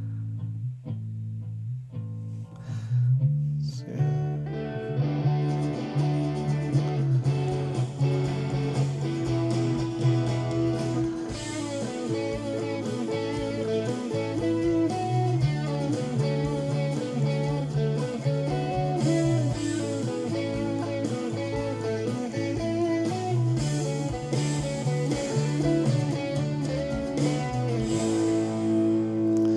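Multitrack recording of a band, guitar to the fore over a steady bass line, played back through a digital mixer for a virtual sound check. It is sparse at first, and the full band fills in about four seconds in.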